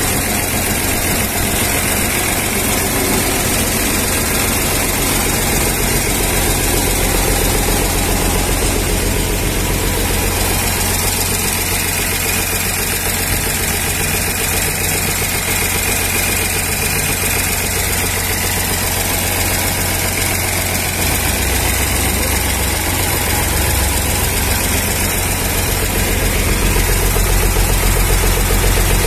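Mercedes-Benz OH 1113 bus's late-1980s six-cylinder diesel engine idling steadily, heard up close at the rear engine bay; it gets slightly louder near the end.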